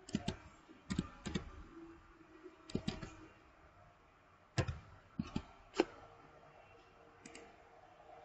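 Computer keyboard keystrokes and mouse clicks as numbers are typed into a settings field: sharp irregular clicks in small groups over a quiet room, the loudest about six seconds in.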